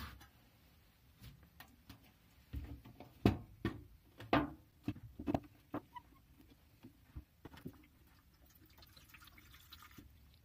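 A metal can of Gunk degreaser handled on a workbench with a few knocks and clunks, then the degreaser poured into an aluminium mess tin near the end, a faint trickle.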